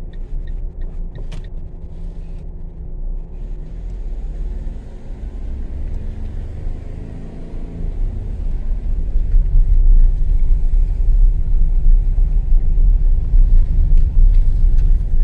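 Low rumble of a car's engine and tyres heard from inside the moving car, growing louder about halfway through.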